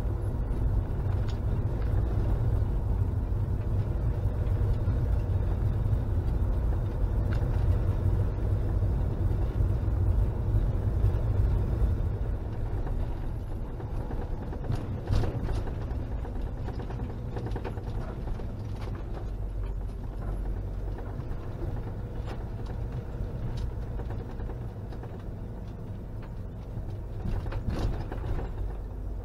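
Motorhome engine and road rumble heard from inside the cab while driving. The rumble is steady, drops in level about twelve seconds in, and has a couple of brief knocks later on.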